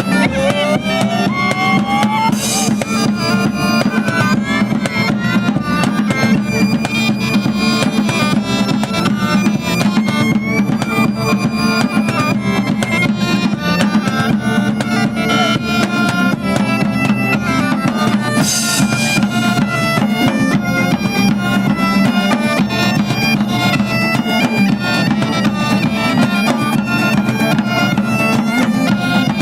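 Bagpipe music: a steady drone under a shifting melody, with drums and two brief crashes, one early and one about two-thirds of the way through.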